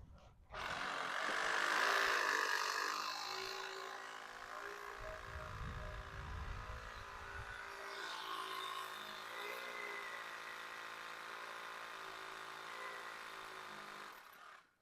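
A motor running steadily, with a steady pitched hum and a few small shifts in pitch. It starts abruptly about half a second in and cuts off just before the end.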